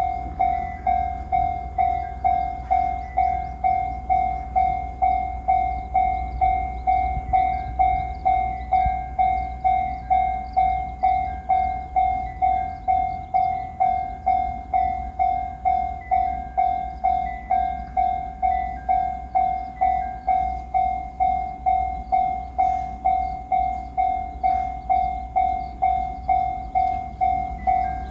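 Japanese level-crossing warning bell ringing in a steady, even rhythm of just under two strikes a second, sounding the alarm for an approaching train.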